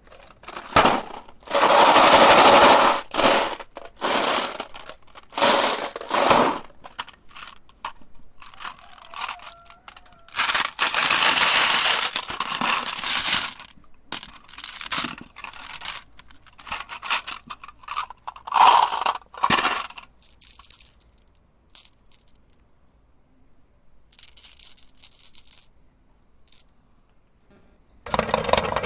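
Glass marbles cracking and crunching in a meat grinder, in irregular loud bursts with quieter gaps between. Near the end a steady machine running sound starts.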